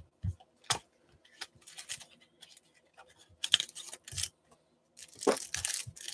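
Plastic trading-card pack wrapper being torn open and crinkled, with scattered light clicks and taps of handling. The crackling thickens near the end.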